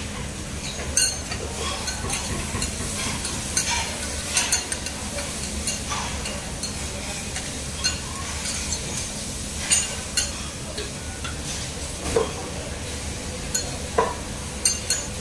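Wooden chopsticks and a plastic spoon scraping and clicking against a disposable food box while picking through food, irregular sharp clicks over a steady background hiss.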